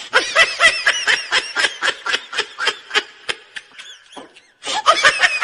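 Hearty human laughter in quick repeated bursts that dies away after about four seconds, then breaks out again loudly near the end.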